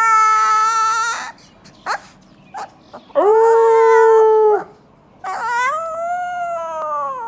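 A young husky puppy howling: a howl that trails off about a second in, then two more howls of a second or two each, the last rising and then falling in pitch.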